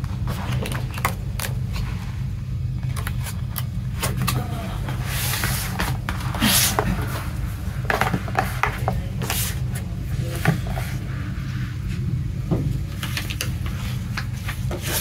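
Plastic disc cases and a cardboard slipcase handled on a tabletop: scattered clicks and taps as cases are set down and nudged, with a couple of sliding rubs about five to seven seconds in, over a steady low hum.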